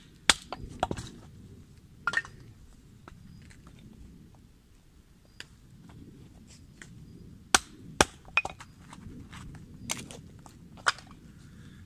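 Firewood being split on a tree stump with a knife struck by a wooden mallet: sharp, irregular wooden knocks, a few near the start, then a quiet spell, then a cluster of strikes about two-thirds of the way in.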